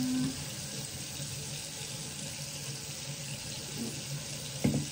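Bathroom sink tap running steadily, with a brief knock near the end.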